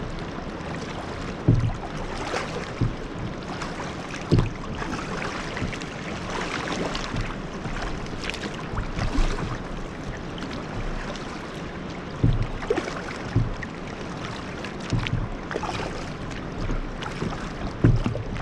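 River water moving around a kayak, with wind on the microphone and dull knocks every one to three seconds.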